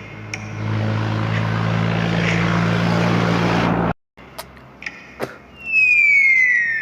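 Sound-effect clips. First a steady engine-like rumble with a low hum, which cuts off abruptly after about four seconds. Then come a few sharp clicks and a long whistle falling slowly in pitch.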